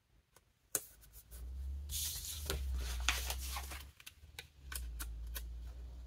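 Sticker sheet and backing paper crinkling and rustling as planner stickers are peeled off and pressed onto a paper page, with a sharp tap under a second in and a few light clicks near the end. A low rumble of handling on the desk runs beneath.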